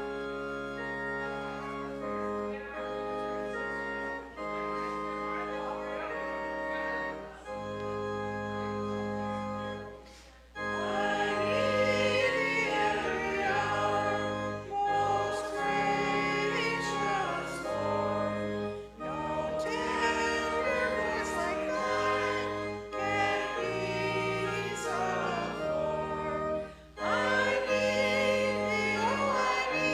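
Organ playing held chords alone, then about ten seconds in voices join and sing a hymn together with the organ.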